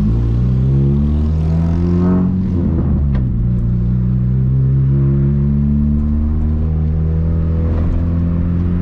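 A 1999 VW Gol G2's 1.0 8V four-cylinder engine pulls through a straight-pipe exhaust with an HKS 4-inch muffler as the car accelerates. The pitch climbs for about two seconds, drops at a gear change about three seconds in, then climbs steadily again and levels off near the end.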